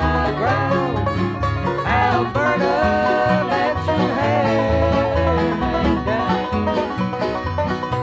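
Bluegrass band playing an instrumental break, with banjo, guitar and a bass line under a lead melody whose notes slide up and down in pitch.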